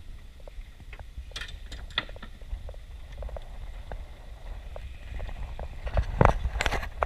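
Scattered short knocks and clicks over a low steady rumble, with a louder cluster of sharp knocks near the end.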